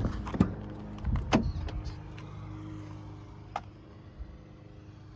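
A heavy thud at the very start, most likely the pickup's cab door shutting, then a few knocks and clicks from inside the cab over a steady low hum.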